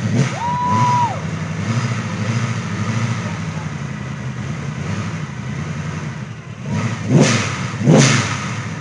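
Chevrolet Chevelle's engine revved hard about half a second in, then held running at steady high revs, with two loud surges near the end.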